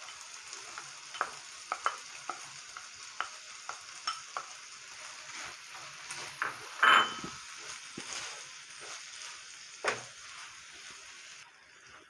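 A wooden spatula scrapes and taps a non-stick frying pan as crumbled paneer is stirred into a sizzling onion, tomato and pea masala, over a steady frying hiss. There are louder knocks about seven seconds in and again near ten seconds, and the hiss fades out shortly before the end.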